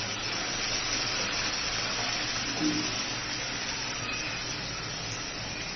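Ground ginger, onion, garlic, chilli and tomato paste sizzling steadily as it goes into hot mustard oil and fried onions in a kadai, with a brief knock about two and a half seconds in.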